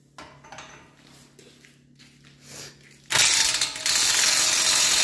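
Impact wrench hammering on the front hub's CV axle nut, starting abruptly about three seconds in and running loud and steady. A few light knocks of tool handling come before it.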